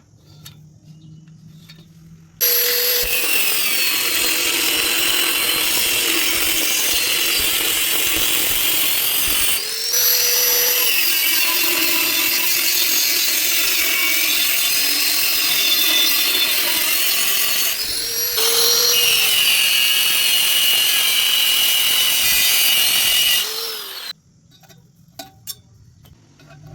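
Handheld electric power tool working on metal, likely grinding, running in three long stretches. It stops briefly about ten and eighteen seconds in, and its whine rises as it spins up each time and wavers with load. It cuts off a little before the end.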